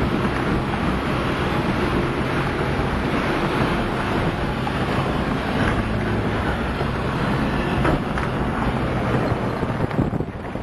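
Off-road vehicle running, its engine a steady low drone under heavy wind buffeting on the microphone, with a brief drop in loudness near the end.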